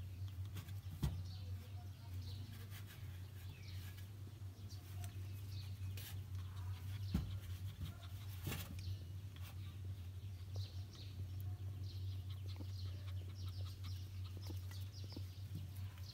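Young puppies play-fighting, with many short high-pitched squeaks and yips scattered throughout and a few sharp knocks, over a steady low hum.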